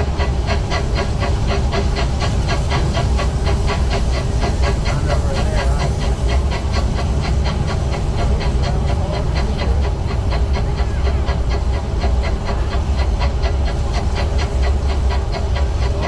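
Small steam locomotive chuffing steadily at a running pace, about five hissing exhaust beats a second, over a steady low rumble.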